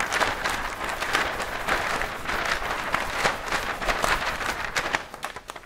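Fanfold continuous-feed printer paper rustling as a long printout is unfolded and flipped through, dying away about five seconds in.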